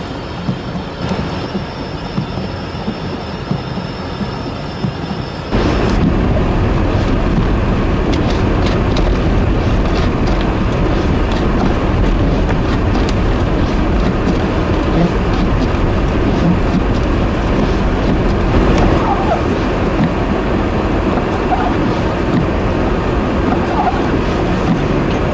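Snowstorm wind rushing over the microphone, mixed with vehicle noise. It jumps abruptly much louder about five and a half seconds in.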